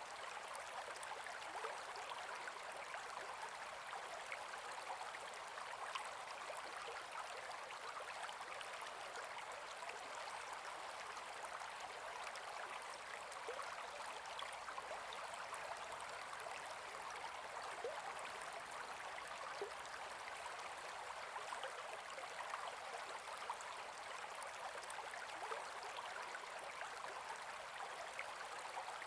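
Gentle forest river flowing: a steady babbling rush of water with little deep rumble, flecked throughout with small quick splashes.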